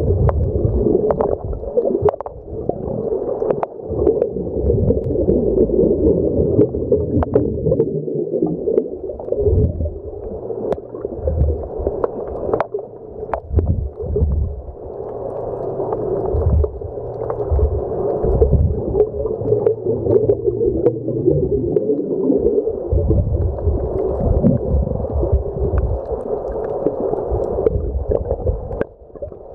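Muffled underwater ambience: a continuous rush and gurgle of moving water, with irregular low thumps and scattered sharp clicks.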